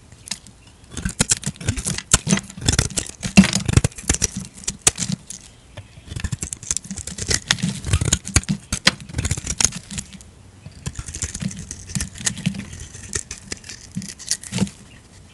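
Utility-knife blade slicing into a crumbly bar of green soap, the flakes crackling and snapping off in quick runs of small clicks and scrapes, with a quieter spell about ten seconds in.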